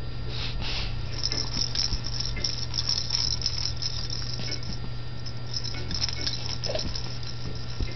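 Baby's hanging plush toy being shaken, its rattle and plastic pieces jingling and clicking in quick irregular clusters, then falling still near the end.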